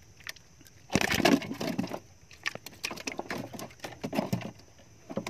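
A freshly caught fish thrashing in the water-filled hold of a wooden boat, splashing and knocking against the planks. A loud flurry comes about a second in, followed by scattered knocks and splashes.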